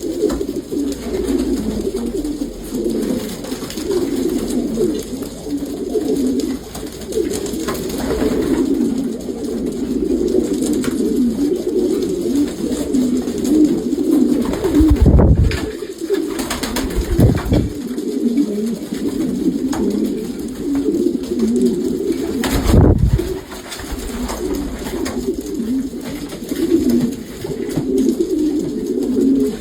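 A group of young racing pigeons cooing continuously, many overlapping low coos, with a few dull thumps near the middle.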